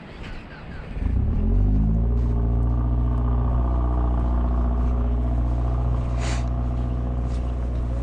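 An engine starts about a second in, its pitch rising briefly as it catches, then runs steadily.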